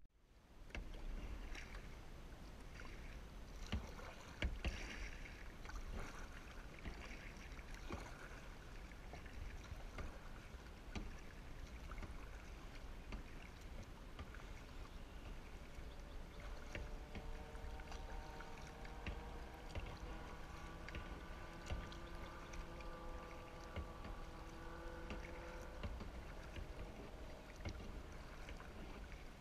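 Kayak paddling: the paddle dipping into the water and water lapping along the hull, with scattered small knocks. A faint hum of several steady tones comes in past the middle and stops near the end.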